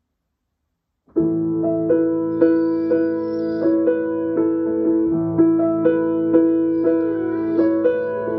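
Piano coming in about a second in and playing a gentle accompaniment, with a new note or chord struck roughly every half second over held tones.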